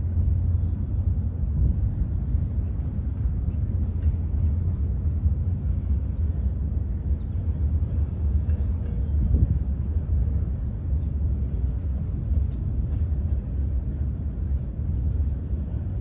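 Low, steady rumble of distant diesel locomotives working in a rail yard, with birds chirping toward the end.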